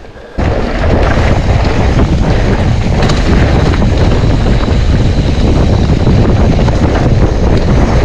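Wind buffeting the microphone while riding a mountain bike along a trail: a loud, steady rumbling roar that starts abruptly about half a second in, with a few faint knocks from the bike over rough ground.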